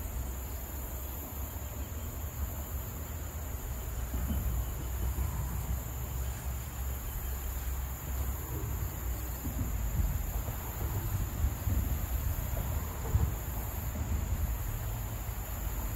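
Insects buzzing steadily at a high pitch, over a low, uneven rumble of wind on the microphone.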